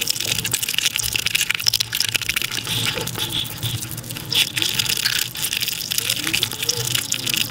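Close-miked ASMR eating sounds of chicken biryani sped up five times: hand-mixed rice squelching and mouth sounds run together into a fast, wet, crackly rush of many tiny clicks.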